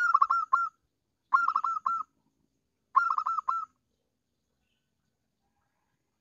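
Zebra dove (perkutut) cooing: three short phrases of quick staccato notes, each about two-thirds of a second long, in the first four seconds.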